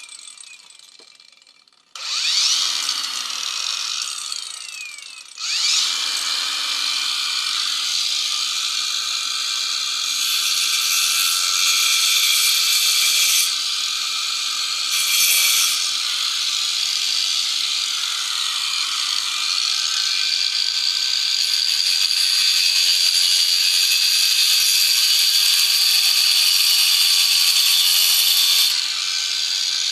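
Electric hand power tool working wood for an airgun stock: it starts about two seconds in and winds down with a falling pitch, then starts again and runs steadily, with a high whine.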